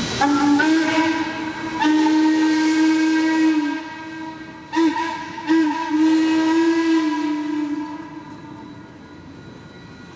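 Steam locomotive whistle of C&O 1309 blowing two long blasts, one short and one long, the grade-crossing signal. The whistle's pitch sags as each long blast closes off, and steam hiss sounds underneath.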